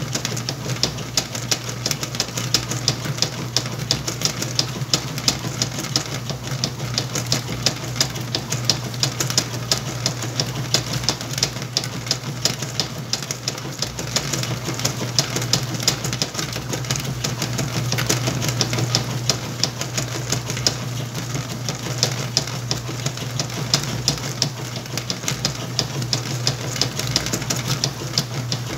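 Whirlpool washing machine running with a load of towels: a steady motor hum under fast, irregular ticking.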